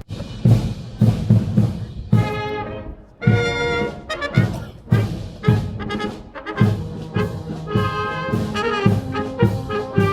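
A marching brass band plays a march: held brass chords over a regular low drum beat, at about one beat a second.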